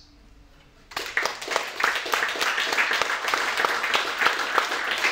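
Audience applauding, starting suddenly about a second in after a brief hush.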